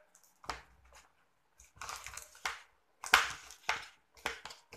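Slime with rice mixed into it being squeezed and kneaded by hand in a plastic container: several short bursts of squishing sound, the loudest a little after three seconds in.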